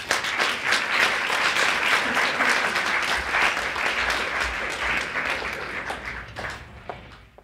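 Audience applauding, beginning abruptly and dying away over the last couple of seconds.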